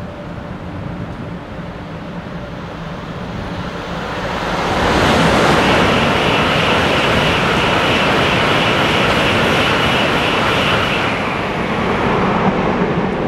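A Nozomi Shinkansen bullet train running through the station at high speed without stopping: a rush of noise that builds about four seconds in, holds for several seconds with a steady high whine over it, then fades.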